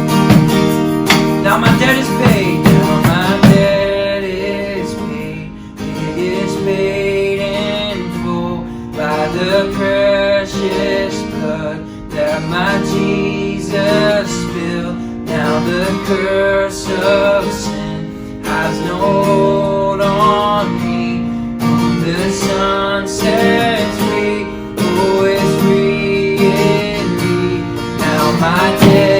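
Worship band music led by strummed acoustic guitar, with sustained chords and a melody moving over them.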